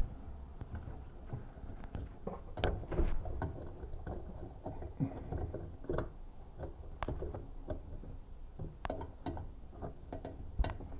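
Pliers and fittings under a bathroom sink being handled, with irregular metal clicks, taps and scrapes as the pliers are worked onto the faucet's valve body to hold it. There is a sharp click at the very start and a busier cluster of knocks about three seconds in.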